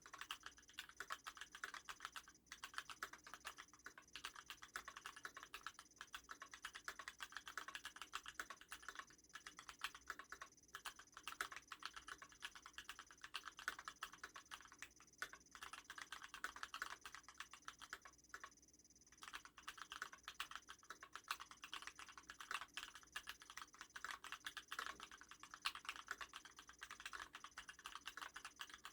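Fast typing on a custom mechanical keyboard with lubed Gateron Yellow linear switches, 65 g springs and Thinsulate dampening: a dense stream of soft key clacks, broken by a few short pauses.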